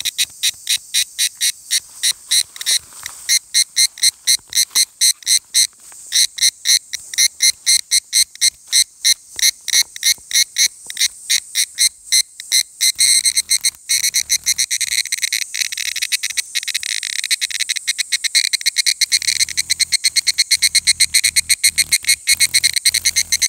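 Higurashi (evening cicada, Tanna japonensis) calling close by: a long run of rapid, evenly repeated high-pitched pulses that grow denser about halfway through.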